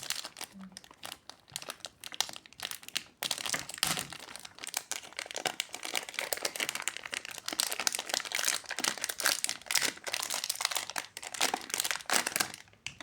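Plastic packaging of a new puzzle cube being handled and unwrapped: dense, irregular crinkling and crackling.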